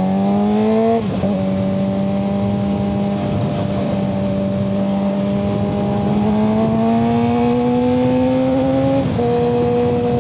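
Suzuki GSX-R600's inline-four engine pulling under way. The revs climb and drop suddenly at an upshift about a second in, then hold and rise slowly before another upshift near the end.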